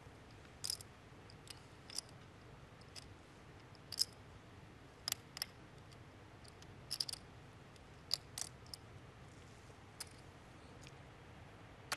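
Poker chips clicking as they are handled at the table: about a dozen light, irregular clicks, some in quick pairs, over a quiet room hush.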